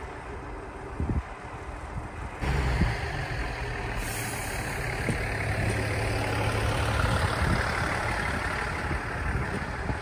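Diesel railcar moving slowly past on the adjacent track: its engine runs with a steady low drone under wheel and rail noise, starting suddenly about two seconds in and growing louder, then easing off near the end.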